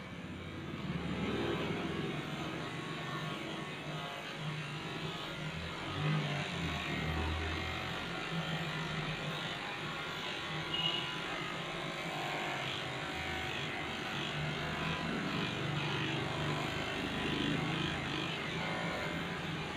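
Electric pet hair clipper running steadily as its blade cuts through a shih-tzu's coat, the hum shifting a little in strength as the clipper moves through the fur.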